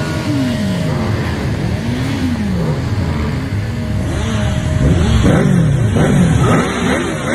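A crowd of motorcycles running together, their engines being revved up and down over and over, many revs overlapping and growing denser and louder in the second half.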